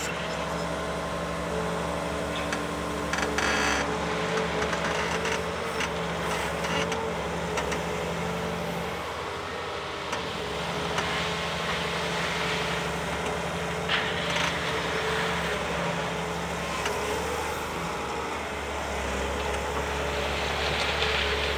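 Volvo ECR 235 CL excavator's diesel engine running steadily as the machine works the ground, its note wavering briefly about halfway through, with a few short clanks.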